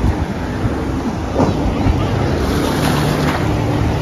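Steady drone of watercraft engines, with water rushing and wind buffeting the microphone; a couple of short splashy thumps about one and a half and two seconds in.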